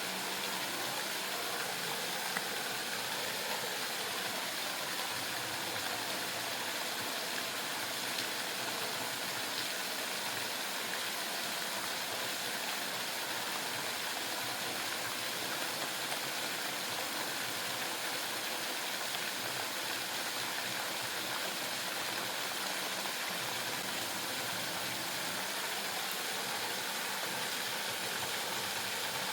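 Waterfall's rushing water: a steady, even hiss that does not change.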